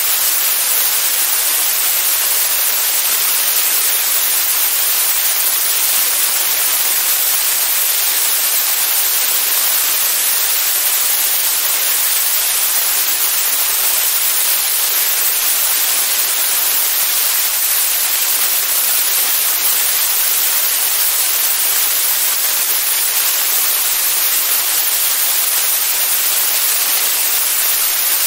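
Wind rushing over a camera microphone mounted outside on a light aircraft's engine cowling in flight: a loud, steady hiss, heaviest in the upper range, with no engine or propeller note standing out.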